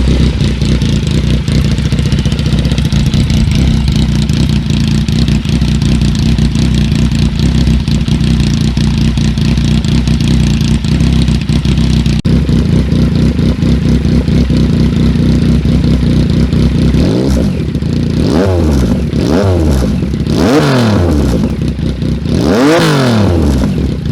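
Yamaha MT-09 three-cylinder engine idling loudly through an open Maverick GP1 exhaust with no baffle, then blipped with about five sharp throttle revs that rise and fall quickly in the last seven seconds.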